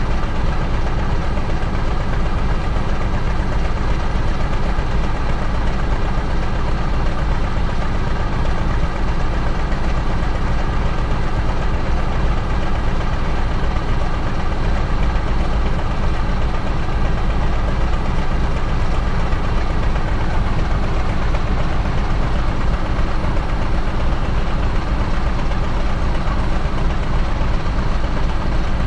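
SU46 diesel locomotive's engine running steadily at low power with a heavy low rumble as the locomotive approaches slowly.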